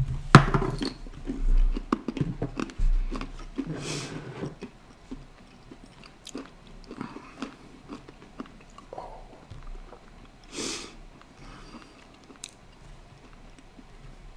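Chili-coated peanuts being chewed close to the microphone: many small crunches, louder and thicker in the first few seconds, then thinning to occasional ones. A short hiss stands out about two-thirds of the way through.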